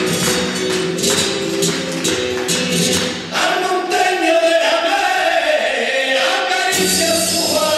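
Flamenco music with a singing voice over rhythmic percussive strokes. About three seconds in the low accompaniment drops away and the voice carries a wavering melodic line, and the full accompaniment comes back near the end.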